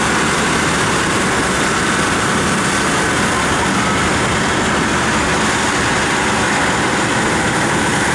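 Mount Washington Cog Railway's M6 diesel locomotive idling, a loud, steady engine noise with no change in pace.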